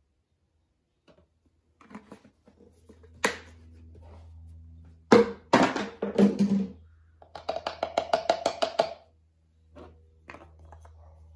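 Plastic oil funnel and quart oil bottle being handled at an engine's oil filler neck. There is a sharp click, then a cluster of hollow plastic knocks as the funnel is lifted out, then a quick rattle of about ten strokes a second. A low steady hum runs underneath.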